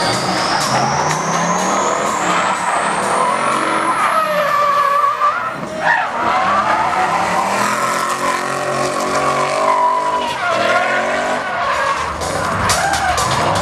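BMW E30 drift car's engine revving and falling back several times as it slides sideways, with tyres squealing and skidding on the asphalt.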